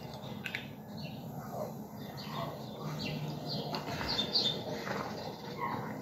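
Small birds chirping in short scattered calls over a low steady hum.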